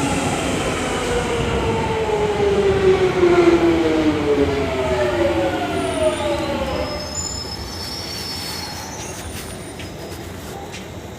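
London Underground Jubilee line train pulling into the platform and braking: its motor whine falls steadily in pitch over about seven seconds, then brief high-pitched brake squeals as it comes to a stop.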